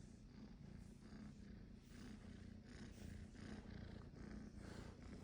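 A kitten purring steadily and faintly.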